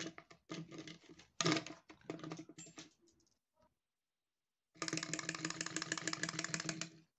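Clockwork spring motor of a wind-up walking chicken toy, its fluffy cover removed, running on a wooden table: a fast, even clatter of small plastic clicks that starts about five seconds in and stops suddenly after about two seconds as the spring runs down. Before it, a few seconds of irregular clicks and knocks as the toy is handled.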